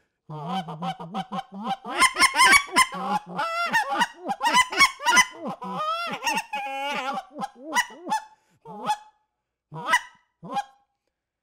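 Power Calls Ion short-barrel goose call (acrylic blend, Mylar reed) blown in a running sequence of short honks and clucks, each note breaking from low to high, varied from small cackler-like to big honker-like tones by opening and closing the cupped hand. The notes come fast at first, then slow to a few spaced honks near the end.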